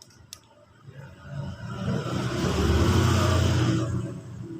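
A person belching long and loud: the belch swells up over about a second, holds for about three seconds, then breaks off.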